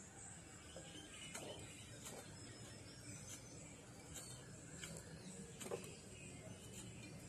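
Faint, irregular scrapes and light ticks of a Y-peeler's blade shaving the thin brown skin off a piece of coconut meat, about five short strokes in all.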